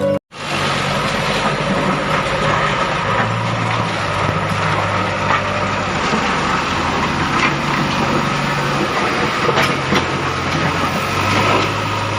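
Steady machinery running, like vehicle engines, with a low hum that shifts in pitch now and then and scattered clicks and rattles.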